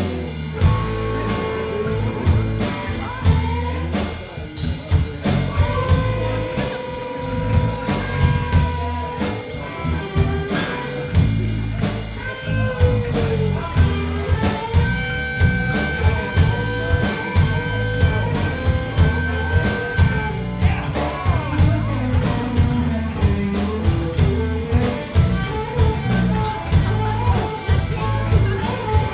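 Rock band playing an instrumental break: an electric guitar plays held and sliding lead notes over a walking bass line and a steady drum-kit beat.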